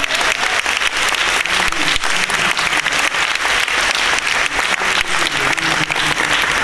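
Large audience applauding: dense, steady clapping throughout.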